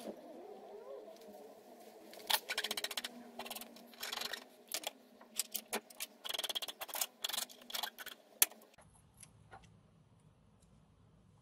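Hands working an electric-scooter hub motor's wire bundle and small plastic connector through a metal nut. Bursts of rapid clicking and rustling, with one sharp click late on, then quieter.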